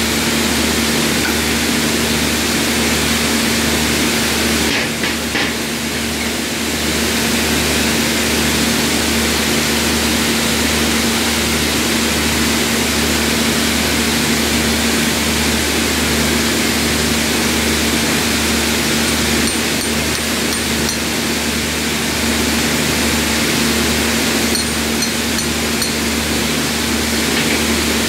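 Heavy mill machinery running: a loud, steady mechanical noise with a constant hum and a low throb that pulses about once a second.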